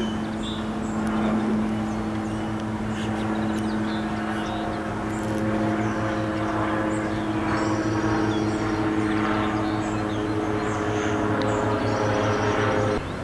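A steady engine drone holding a few fixed pitches, cutting off abruptly near the end.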